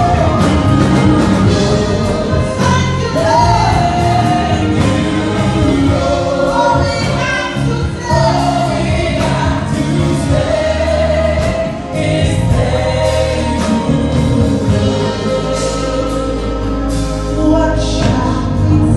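Live gospel worship music: a group of singers in harmony backed by a band with keyboard, guitar and drums.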